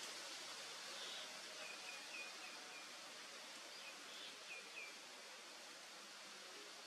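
Faint outdoor forest ambience: a steady soft hiss with a few short, high chirps in two small runs, about a second and a half in and again near five seconds.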